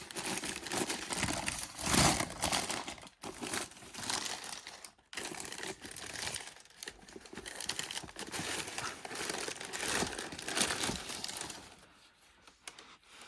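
Packing material crinkling and rustling as a new pair of sneakers is unwrapped in its shoebox, in irregular handfuls with a loud crumple about two seconds in. It dies down near the end.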